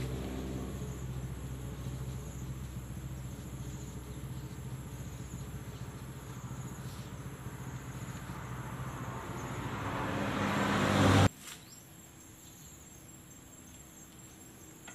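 A motor or engine running with a steady low hum. It grows louder for a few seconds, then cuts off abruptly about eleven seconds in. Insects chirp faintly in the background.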